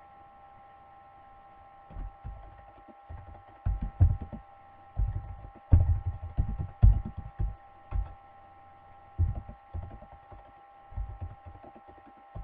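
Computer keyboard being typed on, keystrokes picked up by the microphone as irregular clusters of dull thumps, over a steady electrical hum.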